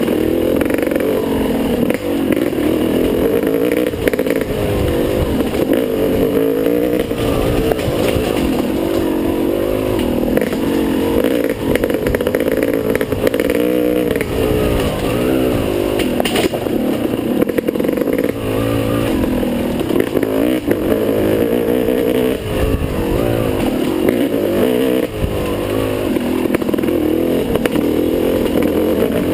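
Dirt bike engine revving up and down constantly as it is ridden through tight singletrack, the pitch rising and falling every second or two, with clatter from the bike over rough ground.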